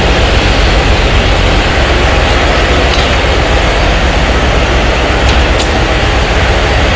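Loud, steady din of a ship's engine-room machinery, a dense rumble with a strong low end, with a couple of faint clicks past the middle.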